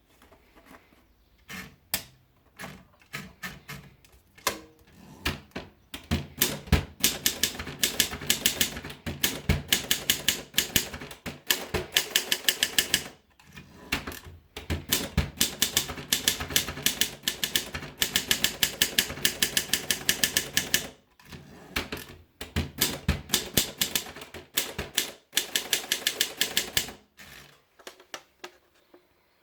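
Triumph Gabriele typewriter being typed on: quick runs of sharp key strikes, broken by short pauses. It starts with a few scattered keystrokes and settles into fast, steady typing, then stops shortly before the end.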